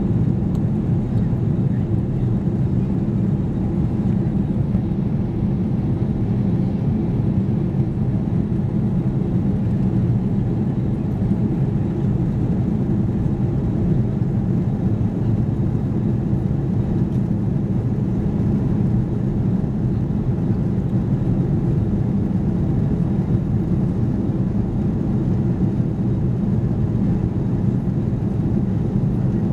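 Airbus A330-300 jet engines heard from inside the passenger cabin: a steady, low, even noise that holds at one level throughout.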